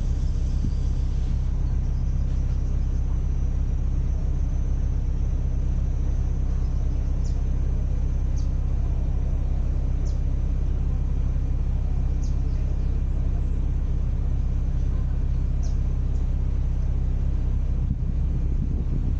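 Steady, unchanging low engine rumble, a deep drone with a few faint high ticks scattered through it.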